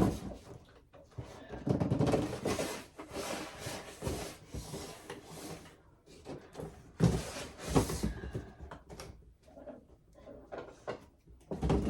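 Parts and packaging of an animatronic being handled during unboxing: irregular knocks, bumps and rustling scrapes, with louder clusters about two seconds in and again around seven to eight seconds.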